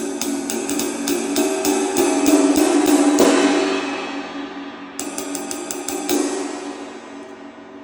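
22-inch flat ride cymbal (2723 g) played with a stick, about four strokes a second over a mellow, complex wash. The wash swells in the middle, the strokes pause, then a second run of strokes comes about five seconds in before the cymbal is left to ring and fade.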